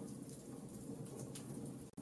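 Wood fire crackling: a low steady rumble of flames with scattered faint crackles and pops. The sound cuts out for a split second near the end.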